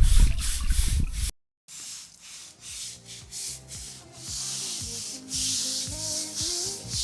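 Brush scrubbing sealer onto imprinted concrete in repeated scraping strokes. Just after a second in there is a short cut, and background music with a simple melody comes in under the strokes.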